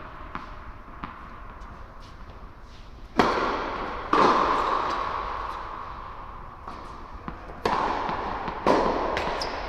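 Tennis balls struck by rackets: four sharp pops in two pairs about a second apart, each ringing out in a long echo through the large indoor tennis hall, with lighter ball ticks between them.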